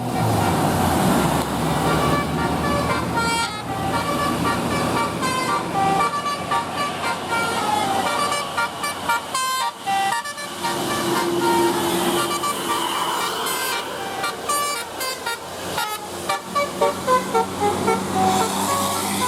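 Bus 'telolet' multi-tone horns playing quick runs of short notes that step up and down, repeated over and over, over the noise of bus engines and traffic.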